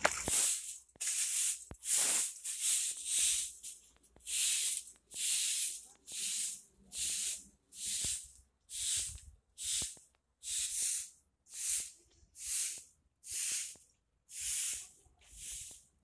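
Soft grass broom sweeping a bare earth yard, a brushy swish with each stroke, a little more than one stroke a second.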